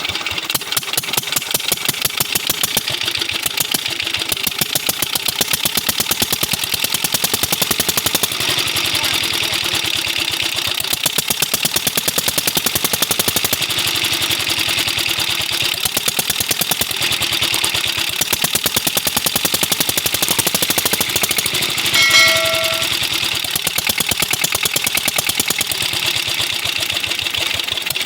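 A 16 HP diesel engine running steadily with a rapid, even firing beat; by the mechanic's account its oil pump is not yet lifting oil. A short high beep-like tone sounds briefly about 22 seconds in.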